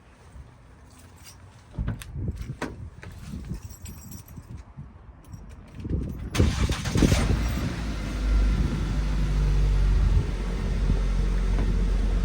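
Scattered knocks and handling clatter, then about six seconds in a louder clatter as the camera stand is blown over, followed by heavy wind buffeting the microphone with a loud, steady rumble.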